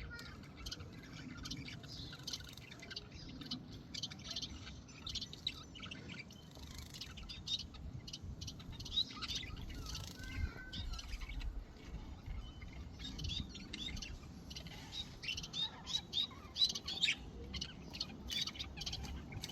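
Small caged pet birds giving short, repeated chirps and toots, scattered and busier in the second half, as they bathe in a water dish.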